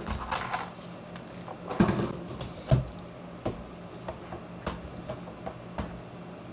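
Irregular plastic clicks and knocks from parts of a budget mechanical keyboard being handled while it is taken apart, with two louder thumps about two and three seconds in, over a steady low hum.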